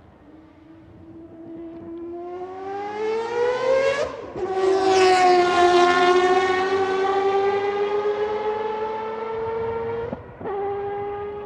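Mazda 787B's four-rotor rotary racing engine accelerating past with its high, buzzing note climbing in pitch. It upshifts about four seconds in and again near the end, the pitch dropping sharply at each shift. It is loudest just after the first shift and then fades slowly as the car moves away.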